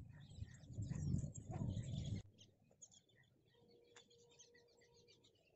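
A loud low rumbling noise for the first two seconds, which cuts off abruptly. After that, faint chirping of small birds, with a faint steady tone for over a second in the middle.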